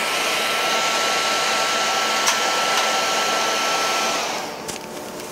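Hand-held hair dryer blowing hot air onto a fitting of a liquid nitrogen dewar, a steady rush of air with a thin motor whine. It is switched off about four seconds in and winds down.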